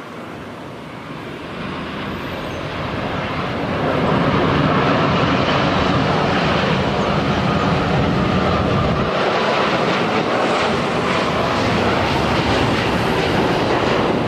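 Boeing 787-8 Dreamliner's jet engines on landing approach. The noise grows louder over the first few seconds, then holds as a steady loud rush.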